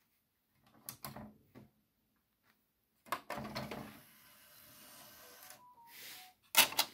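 Mechanism of a JVC XL-V242 compact disc player, worked by hand from the front panel. A few button clicks come about a second in, then a clatter and a steady whir as the disc tray motor slides the tray out. A sharp plastic clack near the end is the loudest sound.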